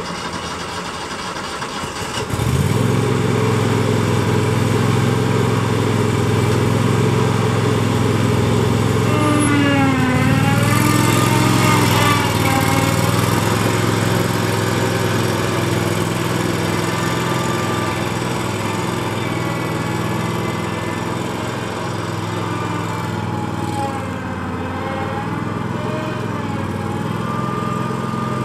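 Grasshopper 727K zero-turn mower's Kohler Command Pro 27 HP V-twin engine running, throttled up about two seconds in and then holding steady as the mower drives off. Its pitch dips and recovers briefly about ten seconds in and again near the end.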